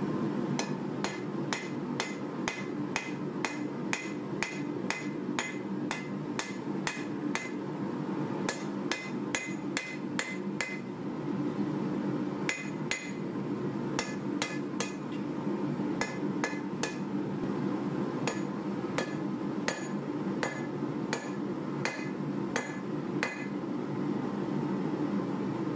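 Hand hammer forging a red-hot bar of 1095 carbon steel on an anvil: a steady run of about two blows a second, broken by a few short pauses, each blow a sharp strike with a brief metallic ring.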